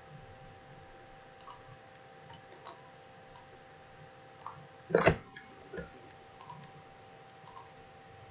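Computer mouse buttons clicking now and then, faint and sharp, with a louder thump about five seconds in. A faint steady hum runs underneath.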